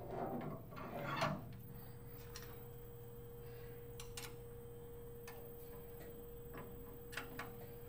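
Faint handling clatter as a Kress high-speed spindle is seated in the clamp of a right angle attachment, then a few sharp isolated clicks as the clamp is tightened with a hex key, over a faint steady hum.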